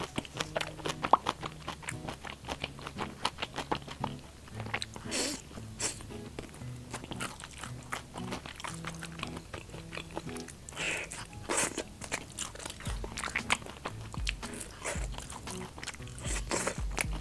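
Close-miked biting and crunching of deep-fried skewered food, chiefly thinly sliced lotus root fried crisp, with many sharp, irregular crunches. Soft background music plays under it.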